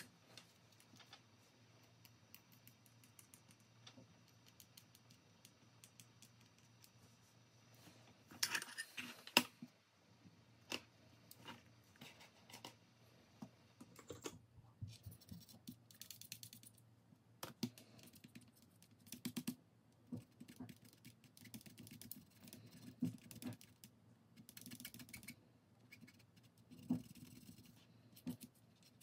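Irregular light clicks, taps and scrapes of small objects being handled, with a louder rustling scrape about eight to nine seconds in and several shorter scraping sounds later on.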